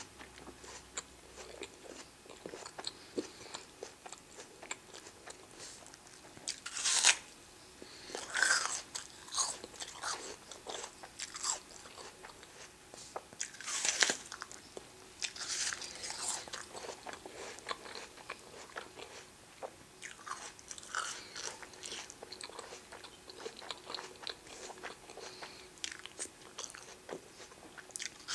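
Raw apple being bitten and chewed close to the microphone: crisp crunches with wet chewing between, the loudest bites about seven, fourteen and sixteen seconds in.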